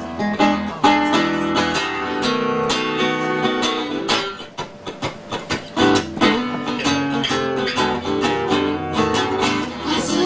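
Acoustic guitar strummed and picked in a busy instrumental passage, with quick rhythmic strokes under sustained melody notes.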